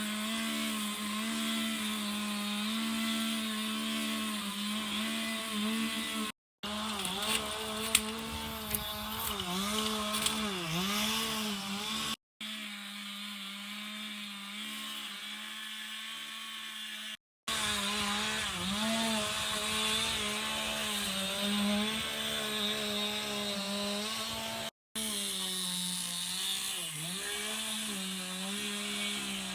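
Two-stroke chainsaw running at high revs, its pitch sagging and recovering again and again as the chain bogs down in wood. It breaks off abruptly four times, and the middle stretch is fainter. A few sharp cracks come about a quarter of the way in.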